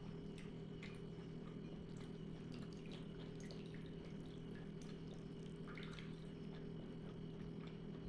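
Small wet clicks and smacks of a person chewing food close to the microphone, irregular and scattered, over a steady low hum.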